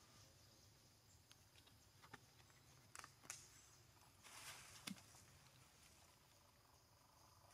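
Near silence: faint outdoor ambience with a few soft clicks and a brief light rustle just before the middle.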